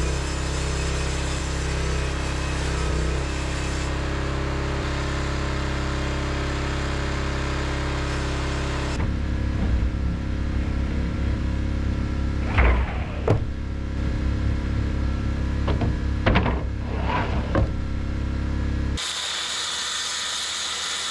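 Circular saw running and cutting ZIP sheathing panels. Its whine drops sharply in pitch and recovers twice in the middle as the blade takes load. It changes abruptly to a hissing cut near the end.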